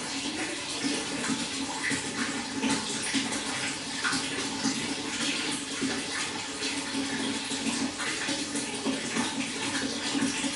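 Water running and splashing steadily into a fish pond, with many small irregular splashes.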